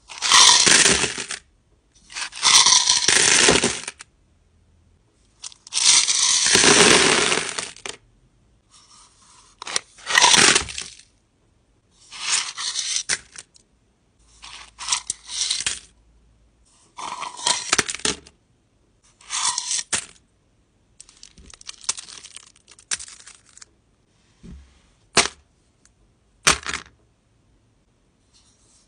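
Tumbled crystals and rough crystal chunks poured from cups into a box of stones, clattering and rattling in about ten separate pours of varying length, with a couple of single stones clicking down near the end.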